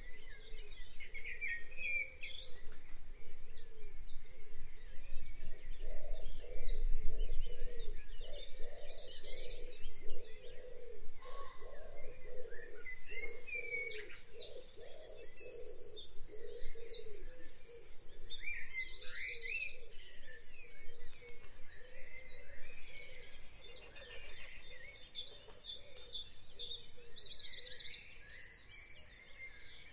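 Wild songbirds singing in spring, several birds at once, with short repeated trilled phrases coming again and again.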